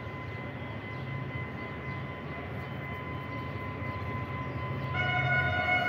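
Low steady rumble of a diesel train, then about five seconds in a train horn starts sounding one loud, steady note.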